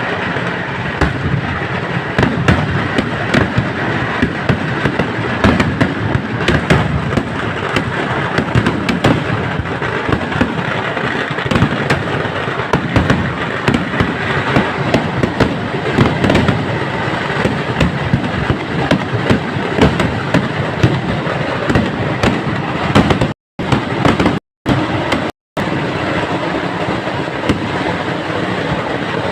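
Fireworks barrage: a dense, unbroken rattle of firecracker bangs and crackling. It is cut by three brief drops to silence about three-quarters of the way through.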